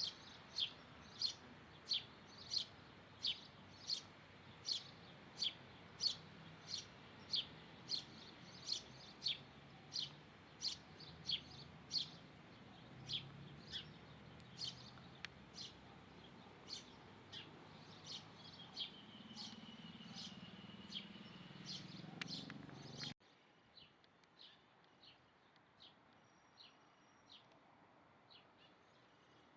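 A small bird repeating a short, sharp chirp about three times every two seconds, growing softer over the second half. About three-quarters of the way through, the sound cuts off abruptly and gives way to fainter, more scattered chirps.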